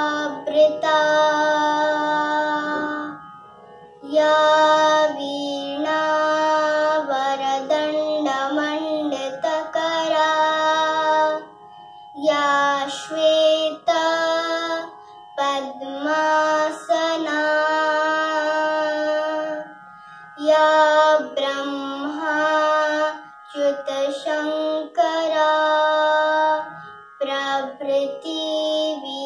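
A young girl singing a Sanskrit shloka in a melodic chant: long held phrases with short pauses for breath between them.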